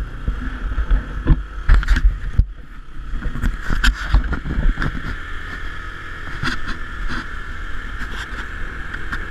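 ATV engine running as the quad bike rides a rough dirt trail, with wind rumbling on the microphone. Frequent knocks and rattles come from the bumps, heaviest in the first few seconds.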